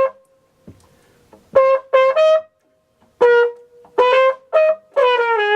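Flugelhorn playing a phrase of short, detached notes, a few grouped close together, ending on a longer note that slides down in pitch.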